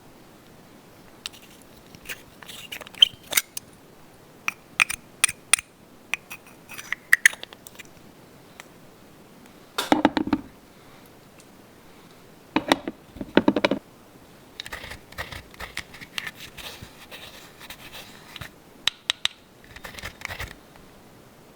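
Small plastic toy parts being handled and set down: scattered sharp clicks and taps, a few heavier knocks about ten and thirteen seconds in, and a stretch of scraping and rustling in the later part.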